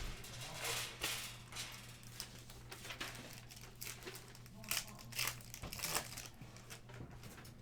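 Crinkling and rustling of trading-card pack wrappers and cards being handled, in irregular short bursts with small clicks.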